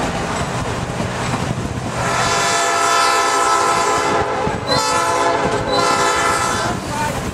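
Diesel locomotive's air horn blowing for a road crossing: a long blast starting about two seconds in, a short break, then a second blast that stops near the end, over the rumble and clatter of the moving train.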